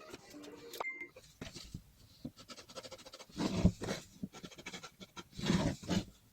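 Workshop handling noises: scattered clicks and light knocks, with two short scraping or rubbing passes, one a little past the middle and one near the end.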